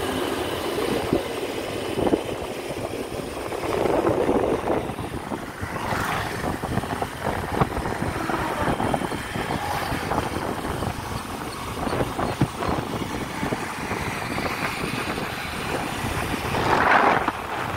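Motorcycles running at road speed, heard from a moving motorcycle, with wind rushing over the microphone.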